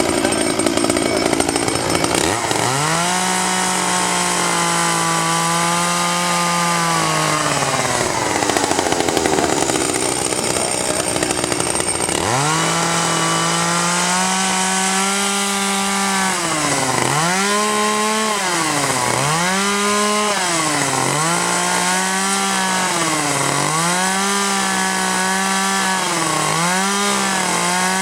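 Two-stroke chainsaw cutting into wood. The engine revs up high, then its pitch sags and recovers again and again as the chain bites under load, with the dips coming faster and more regularly in the second half.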